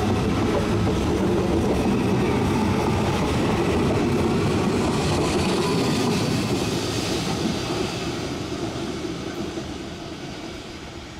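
CAF/Alstom 7000-series electric metro train running past close by on the rails, a loud steady rush of wheel and train noise that fades away after about seven seconds as the last car goes by.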